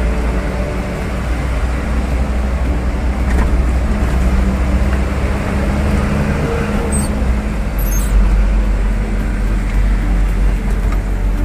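Vehicle driving in city traffic: a steady low engine and road rumble with an even engine drone, and a couple of brief faint clicks partway through.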